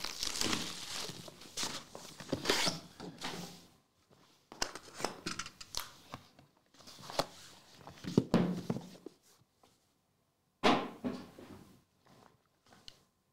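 Hands tearing and peeling the plastic wrap off a trading-card hobby box, then opening the cardboard box and handling the card case inside. The sound is irregular crinkling rustles with soft cardboard thunks and clicks, broken by short pauses.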